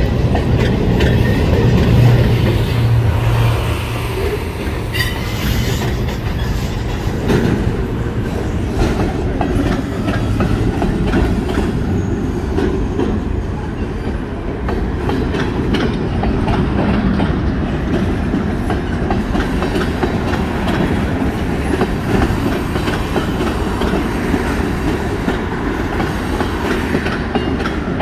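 A CSX mixed freight train's cars, covered hoppers and tank cars, rolling past steadily, a continuous rumble with wheels clicking over the rail joints.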